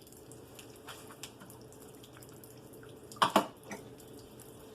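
Light rain dripping and pattering, with scattered small drip ticks and one short, louder clatter about three seconds in.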